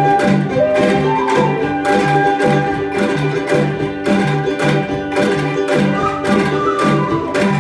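Angklung ensemble with accompaniment playing a tune at a steady beat, with about two bass notes a second under sustained melody notes.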